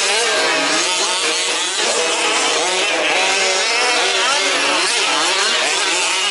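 Several 1/5-scale petrol RC Baja buggies' small two-stroke engines buzzing and revving around the track together, their overlapping pitches rising and falling as they throttle up and back off.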